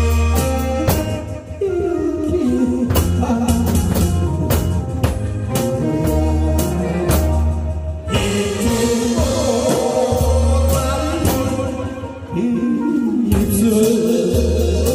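A live band song: a man singing into a microphone over a drum kit playing a steady beat, with bass underneath.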